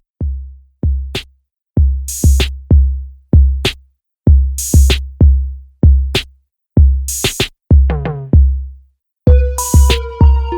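Background music: a sparse electronic beat of deep bass-drum kicks with hi-hat and clap hits, joined by sustained synth chords near the end.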